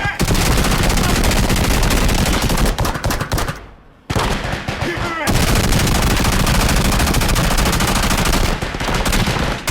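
Battle gunfire: dense, rapid machine-gun and rifle shots. The firing stops for about half a second a little before halfway, then starts again.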